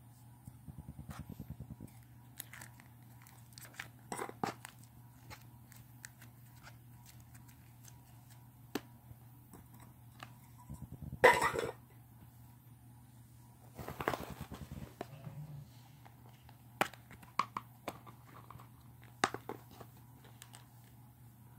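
Slime being squished and worked by hand: short wet crackling, clicking bursts with scattered sharp clicks between them, the loudest about halfway through. A steady low hum runs underneath.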